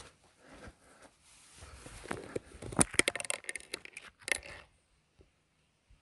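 Close, irregular rustling and crackling clicks near the microphone, busiest in the middle, then cutting off suddenly about two-thirds of the way through.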